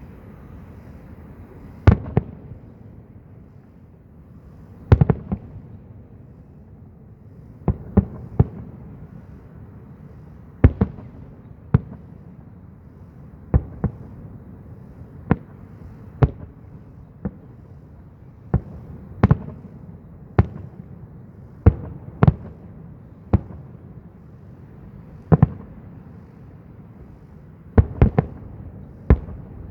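Fireworks display: aerial shells bursting in a long series of sharp bangs, irregularly spaced about one every second or two, some in quick pairs.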